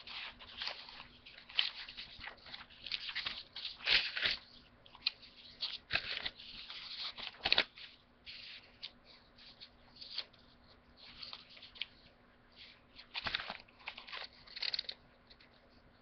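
Sheets of origami paper rustling and crinkling in the hands as they are leafed through one by one, in uneven bursts, with a few louder crackles.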